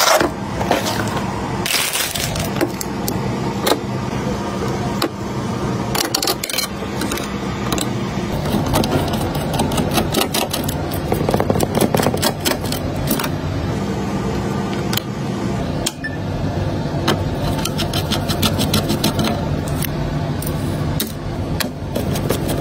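Handling noise of a computer build: repeated clicks, taps and scrapes of a cardboard motherboard box and of a small precision screwdriver turning screws on a motherboard's M.2 heatsink, over a steady low background hum.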